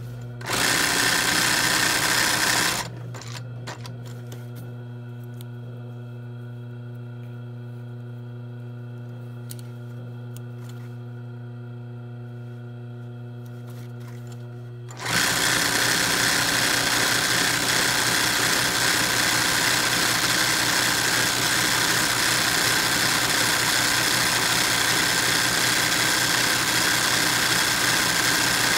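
ROYAL industrial sewing machine stitching in free-motion machine embroidery. A few seconds in it stops, leaving only a steady low hum, and about halfway through it starts stitching again and runs on.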